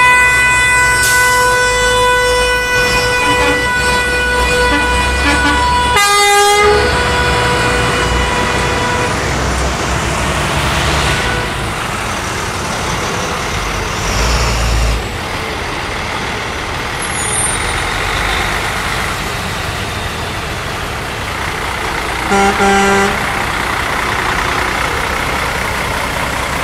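A convoy of heavy tree-service trucks driving slowly past, engines rumbling. A horn is held on one steady note for the first several seconds, a second horn gives a short blast about six seconds in, and another short honk comes near the end.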